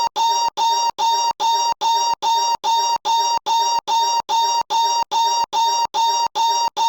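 One short, pitched novelty noise clip looped back to back, nearly three times a second. Each repeat is cut off by a brief silent gap, which gives a stuttering rhythm like record scratching.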